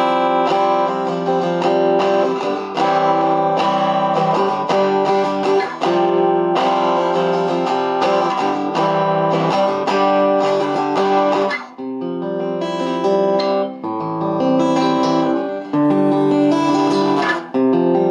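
Acoustic guitar chords strummed through a Topsound A20 acoustic guitar amplifier, with its mid-high and mid-low controls at full and high and low at middle. The tone comes out a little bassy rather than sharp. The playing eases off to a softer passage about twelve seconds in, then picks up again.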